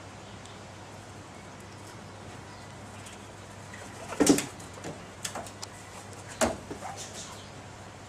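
A pet bird making two short, loud bursts of sound, one about halfway through and one about two seconds later, with lighter rustling between them. A low steady hum runs underneath.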